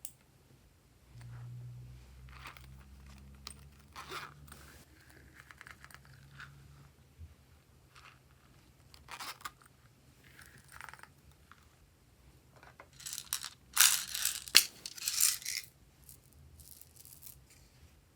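Hands handling slime-making materials: scattered rustling and tearing noises, with a busy, loudest burst of rustling about thirteen to fifteen seconds in.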